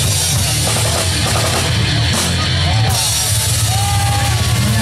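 Live rock band playing loud, with electric guitars and a drum kit going steadily.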